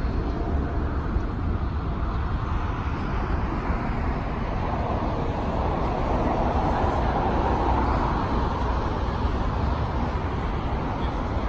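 Airport ambience: a steady low rumble of jet engines and road traffic, swelling about halfway through and easing off near the end.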